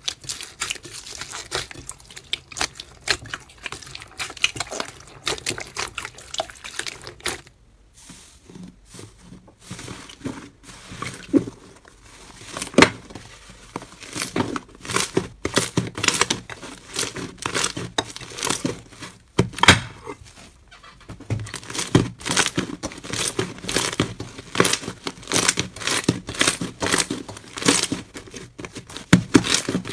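Hands squishing slime: first fingers pressing into a clear jelly slime packed with foam beads, then a thick glossy slime being squeezed and kneaded, making irregular sticky pops and crackles.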